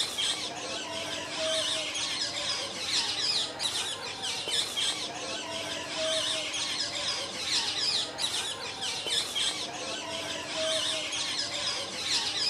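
Dense chorus of small birds chirping, many short quick calls overlapping, with a faint low hum that comes and goes about every four and a half seconds.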